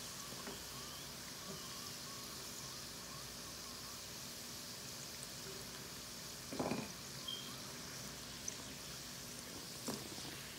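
Oil sizzling steadily around wheat-dough rolls frying in a pan, as they are lifted out with a slotted spoon. A brief knock a little past halfway, and a smaller one near the end.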